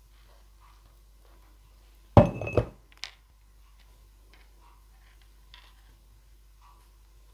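A plastic bottle of Tacky Glue set down into a glass: a sudden clunk and a short rattle against the glass about two seconds in, then a single sharp click. Faint paper ticks follow as the paper butterflies are handled.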